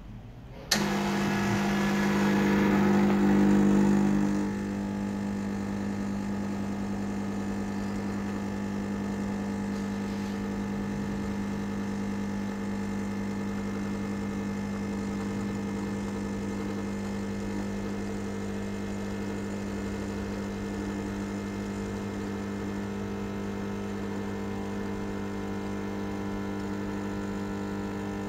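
Gaggia Classic espresso machine's vibratory pump switched on with a click and buzzing steadily as it pushes water through the coffee in the portafilter during an espresso shot. It is loudest for the first four seconds or so, then settles to a slightly quieter, steady hum.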